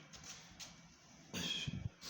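Faint handling noise from work on washing-machine parts, with one louder scrape carrying a short squeak about a second and a half in.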